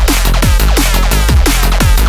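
Electronic dance music with a fast beat and heavy bass. Falling synth swoops repeat about four times a second.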